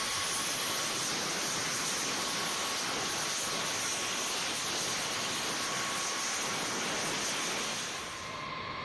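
Cartridge start of a B-52's eight Pratt & Whitney TF33 turbofans: a loud, steady rushing hiss as the start cartridges' gas spins the engines, with a whine rising in pitch over the first two seconds. The hiss drops to a quieter level near the end.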